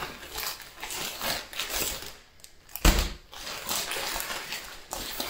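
Plastic zip-top packaging pouches crinkling and rustling as they are handled and laid on a table, with one thump about three seconds in as a pouch is set down.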